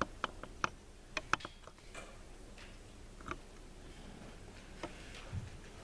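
Light clicks and taps, several in quick succession in the first second and a half, then a few scattered ones and a duller knock near the end, over the hush of a quiet room.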